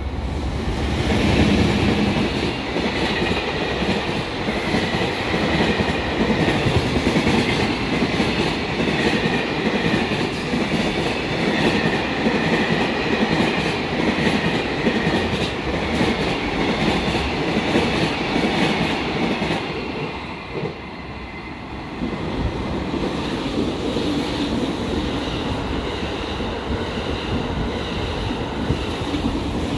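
Freight train rolling past, its wheels clicking over the rail joints in a steady clatter, with a high ringing of wheels on rail above it. The noise dips briefly about two-thirds of the way through, then picks up again.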